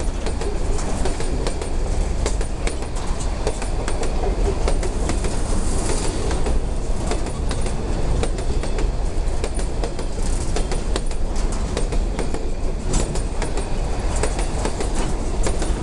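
Covered freight wagons (boxcars) of a long freight train rolling past close by: a steady rumble of steel wheels on rail with rapid clacks of wheels over rail joints and rattling car bodies.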